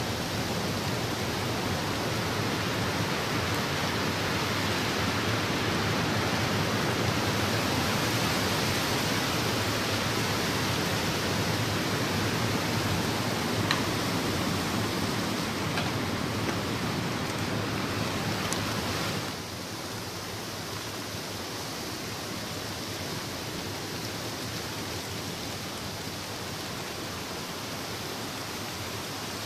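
Steady rushing wind noise in the woods, a broad even hiss with no distinct events, dropping somewhat in level about two-thirds of the way through. A faint click comes about halfway.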